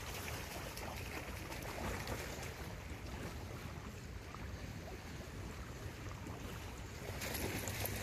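Steady rush of a fast-flowing river with wind rumbling on the microphone. Near the end, splashing as a dog swims into the shallows at the bank.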